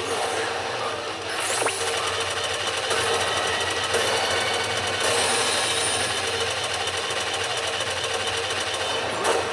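Pachinko machine sound effect: a dense, rapid rattling noise that cuts in suddenly after the music drops out and stops abruptly about nine seconds later.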